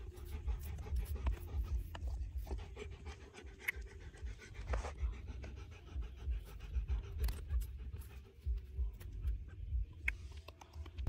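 A dog panting steadily, with scattered light clicks and scratches.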